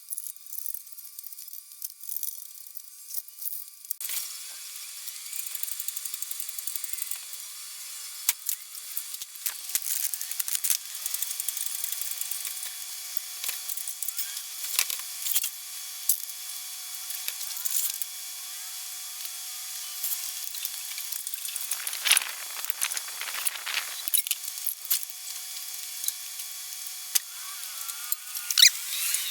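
Hand tools and metal parts being worked: a long run of irregular clicks, clinks and rattles, with a louder scraping stretch about two-thirds of the way through.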